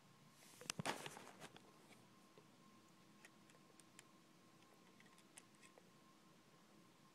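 Faint handling of K'NEX plastic pieces being pressed together: a short cluster of clicks and rustle about a second in, then scattered light ticks.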